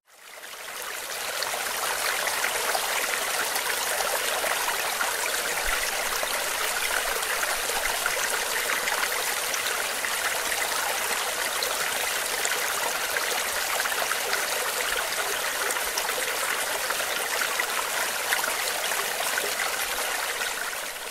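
Running water of a mountain stream: a steady, even rush, fading in over the first second or two and fading out near the end.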